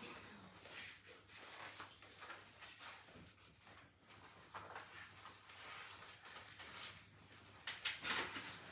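Faint room noise with a steady low hum and scattered small rustles and clicks; a louder burst of rustling comes near the end.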